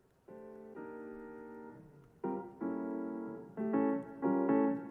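Intro music of sustained piano chords, starting faintly and growing louder as new chords come in more often toward the end.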